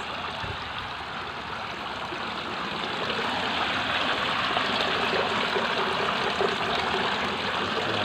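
Water pouring steadily from a PVC pipe into a concrete fish pond, a continuous splashing trickle onto the surface that grows a little louder about three seconds in.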